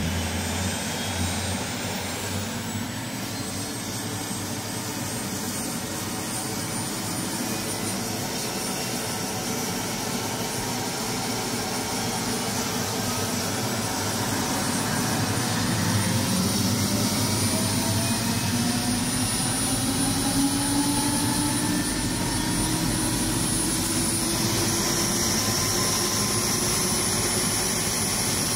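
Helicopter turbine engine and rotor running loud and steady, with a high whine throughout. From about halfway a lower tone slowly rises in pitch as the engine and rotor speed up.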